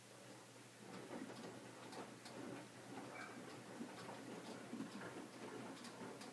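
Hotpoint Aqualtis washing machine in its main wash, the drum turning the wet load again after a pause: sloshing and swishing with many irregular light clicks, starting about a second in.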